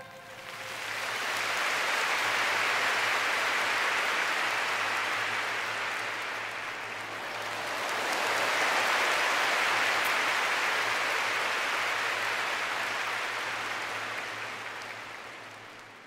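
Large concert crowd cheering and applauding, swelling twice and fading away near the end.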